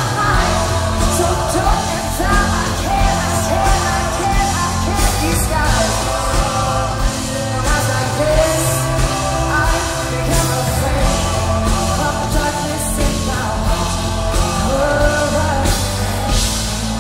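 Live rock band playing loud through the venue's sound system: a woman's lead vocal over drums, electric guitar and keyboard.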